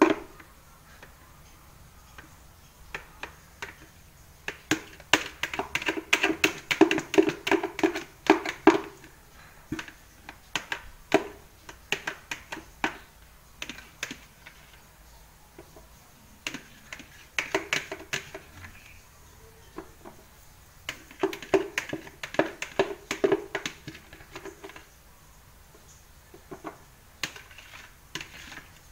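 Bursts of rapid plastic clicking and tapping from a clear plastic pitcher as soap batter is poured and scraped out into a silicone soap mold, in three clusters with scattered single ticks between them.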